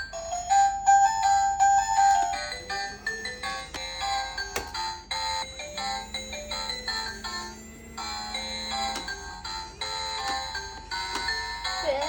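Miniature tabletop claw machine toy playing its electronic game tune, a simple beeping melody, with scattered light clicks.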